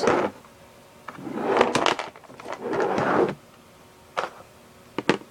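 Small plastic Gogo's figures being handled and flicked on a surface: a couple of seconds of rattling and scraping, then sharp plastic clicks, a single one about four seconds in and a quick pair about a second later.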